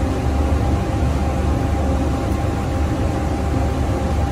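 Steady machine hum of ventilation fan noise, with a low rumble and two faint steady tones running through it.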